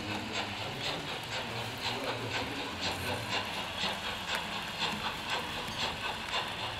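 Model DB class 64 steam tank locomotive's sound decoder playing steam chuffs through its small speaker as it runs, a steady beat of about two to three hissy chuffs a second.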